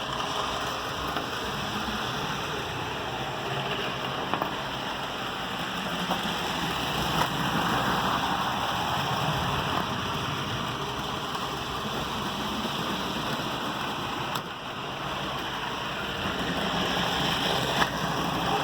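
HO-scale model locomotive running around the layout with its throttle at 100%: a steady rushing whir of motor and wheels on the track that swells louder twice as it passes near, with a couple of faint clicks.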